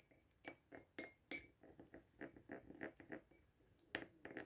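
Butter and grape molasses being stirred by hand: faint, irregular clicks and scrapes of the utensil against the dish, about three a second.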